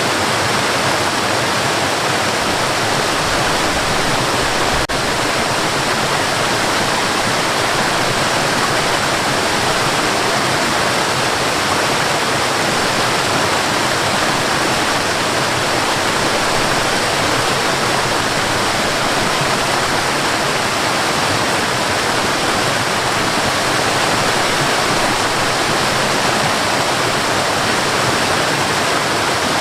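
Waterfall and river water rushing in a steady, unbroken hiss.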